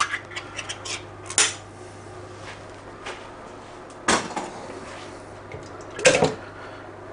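Kitchen handling noises from a tin can: a few light clicks and knocks in the first second or so, then two louder short clatters about four and six seconds in. The second comes as canned peeled plum tomatoes are tipped out of the can into a plastic blender cup.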